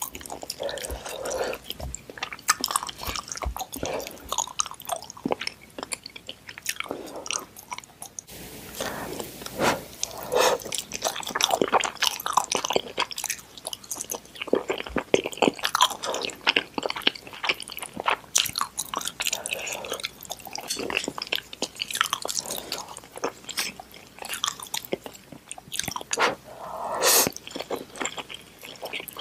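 Close-miked mouth sounds of eating noodles: wet chewing and lip smacks in an irregular run of short clicks, with a longer slurp of noodles near the end.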